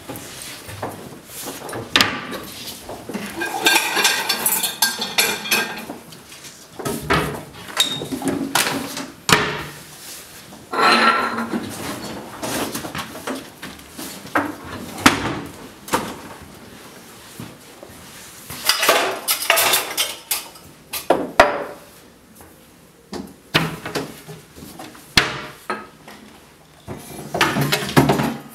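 Pots, pans and dishes clattering and clinking as they are taken down and handled, with repeated sharp knocks, some ringing briefly like struck metal.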